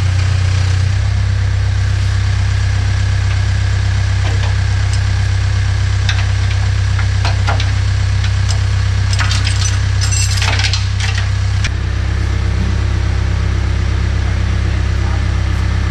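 An engine idling steadily, with scattered metallic clinks and taps of work on the combine's rotor housing, busiest around ten seconds in. The hum shifts slightly about twelve seconds in.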